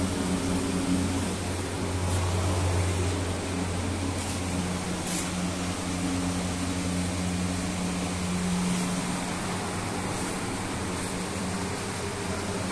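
Steady low mechanical hum over a background hiss, with a few faint ticks.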